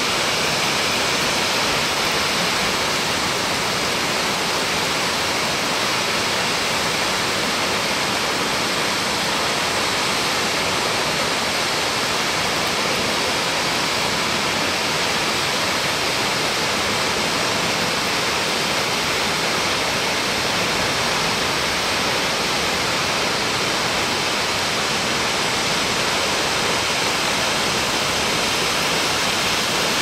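Straight-drop waterfall pouring steadily into its plunge pool: a constant, even rushing hiss of falling water.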